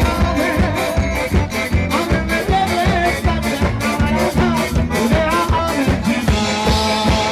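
Live band playing an upbeat song with a steady, fast beat: electronic keyboard, drum kit and acoustic guitar, with a man singing into a microphone.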